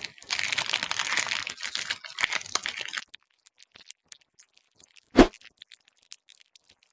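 Dense crunching and crackling, like a scraping ASMR sound effect, lasting about three seconds and stopping abruptly. A single short, loud thump comes about five seconds in.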